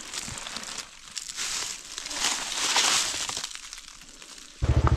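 Clear plastic bag crinkling and rustling in uneven bursts as handfuls of freshly picked greens are pushed into it. Near the end, a motorcycle engine running cuts in suddenly and loudly.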